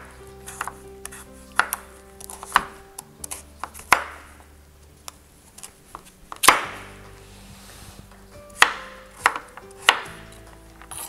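Chef's knife cutting through a kabocha squash with its skin on and knocking on the cutting board, about nine irregular strokes. The loudest comes about six and a half seconds in.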